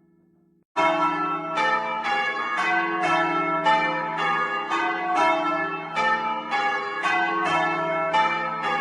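A ring of four heavy church bells hung for change ringing, rung in sequence, the strokes following each other steadily about twice a second and each ringing on under the next. The ringing cuts in abruptly about a second in, after the hum of an earlier stroke has died away.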